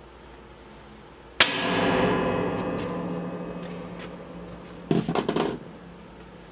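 A single hard hammer blow on a sheet-metal panel, which rings with many tones and dies away over about three seconds. About three and a half seconds later comes a short clattering rattle.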